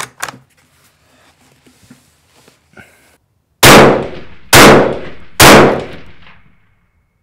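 Three rifle shots from a Ruger American bolt-action in 6.5mm Creedmoor, each a very loud crack that trails off over most of a second. They come a little under a second apart, starting about halfway through, and are the rounds fired to confirm the rifle's zero after a windage adjustment.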